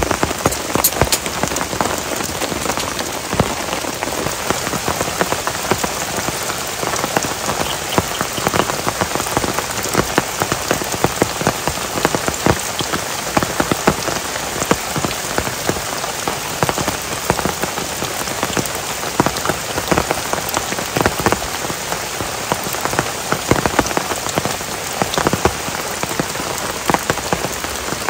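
Heavy rain falling steadily, with many sharp individual drop hits close by.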